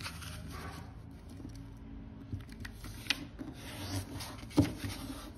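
Origami paper being folded and creased by hand: fingers rubbing and sliding over the paper against the table, with a few sharp taps, the loudest about four and a half seconds in.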